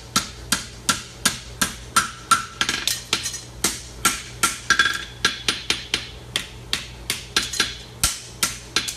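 Farrier's hammer striking a hot horseshoe held in tongs just off the edge of the anvil, a steady run of blows about three a second, each with a short metallic ring, as he pulls and shapes the toe.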